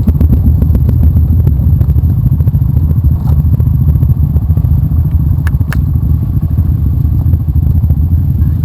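Motorcycle engine running steadily with a loud, rapidly pulsing low rumble, with two brief sharp clicks about five and a half seconds in.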